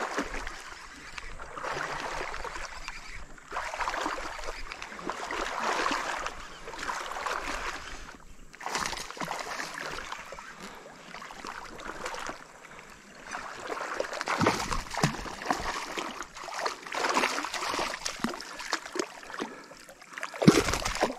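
A hooked traíra splashing in weedy shallow water as it is pulled in, with the water plants rustling, in irregular bursts; the loudest splash comes near the end.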